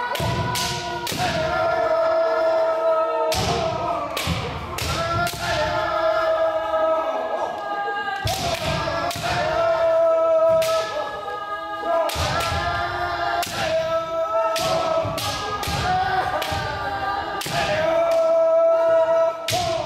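Kendo sparring by many pairs at once: sharp cracks of bamboo shinai striking armour and stamping footwork on a wooden floor, dozens of them, over overlapping long held kiai shouts from many players, echoing in a large gym.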